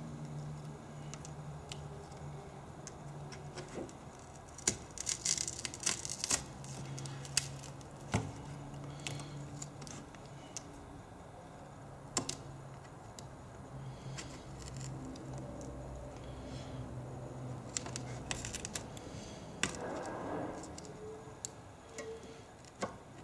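Scattered small clicks and scrapes of a thin pry tool and fingers working cracked iPad 2 digitizer glass and its adhesive tape off the frame, over a steady low hum.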